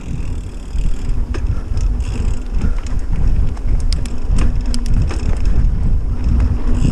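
Mountain bike rolling along a dirt trail: a loud low rumble of tyres and wind buffeting the GoPro microphone, with scattered clicks and rattles from the bike.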